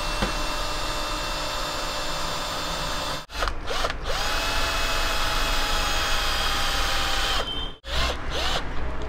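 Cordless drill motor whining steadily as its bit works into a flat metal bar held in a vise. It stops briefly about three seconds in and spins back up, then stops and starts again near the end.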